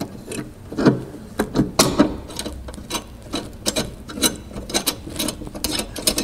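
Irregular metallic clicks and clinks of hand tools and parts being handled in a car's engine bay, spaced unevenly, with a few sharper knocks.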